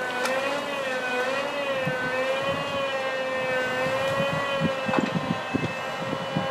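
A motor running steadily at high speed: a whine whose pitch wavers slightly, with scattered light knocks underneath.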